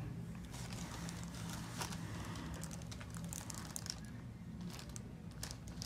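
Faint crinkling and rustling with a few light clicks, over a steady low hum: a patient held and shifting on a chiropractic treatment table.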